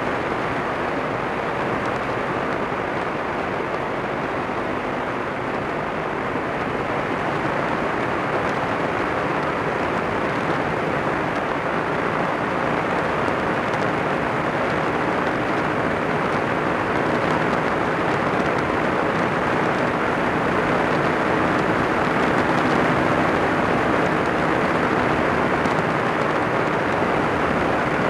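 Kolb ultralight's engine and pusher propeller running steadily in level flight, with wind rushing over the airframe, heard close up from the aircraft. It grows slightly louder in the second half.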